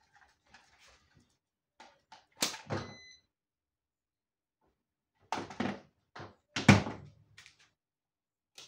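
Handling knocks and clunks on a workbench: a few sharp knocks about two and a half seconds in, the first with a brief metallic ring, then a second cluster of heavier clunks a few seconds later, the loudest near the end of it.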